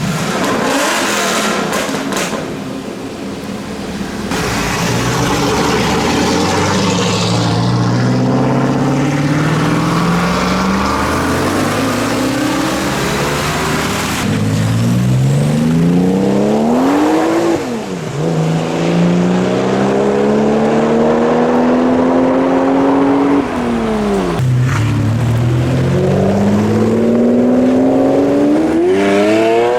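Car engine accelerating hard through the gears: its note climbs steeply, falls back at each gear change about two-thirds of the way in and again near the end, then climbs again.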